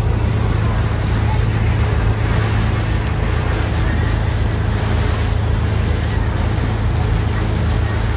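Small water taxi's engine running steadily under way, a strong low hum, with water rushing along the hull beneath it.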